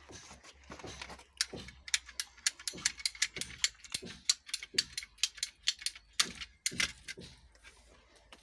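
A run of sharp mechanical clicks, about four or five a second for several seconds, with a few scattered clicks before and after.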